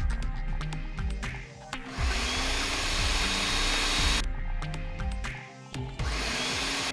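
A blender motor runs in two pulses, blending a herb sauce. It spins up with a rising whine about two seconds in, runs for about two seconds and stops, then starts again near the end. Background music with a beat plays throughout.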